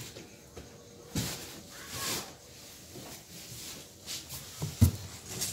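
Scattered rustles and light knocks of packaging being handled: paper, plastic bag and cardboard. There is one louder thump near the end.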